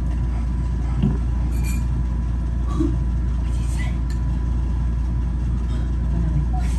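A steady low hum throughout, with faint voices over it.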